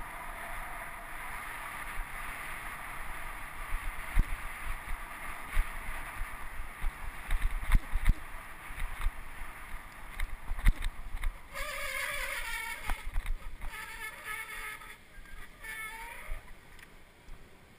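Wind and road noise from a moving bicycle, with sharp knocks from bumps in the road. About twelve seconds in, a wavering squeal with several overtones comes and goes for a few seconds, as bicycle brakes squeal while the bike slows, and the rushing dies down near the end.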